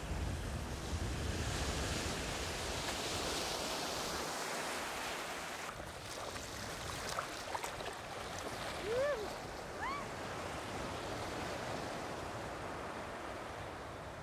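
Sea surf washing and breaking in shallow water, with wind buffeting the microphone as a low rumble for about the first six seconds. A few short rising-and-falling calls come through about halfway in.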